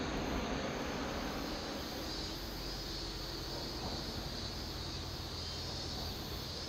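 Low, steady engine rumble of a KiHa 40 diesel railcar approaching from a distance through a tunnel, with a steady high hiss over it.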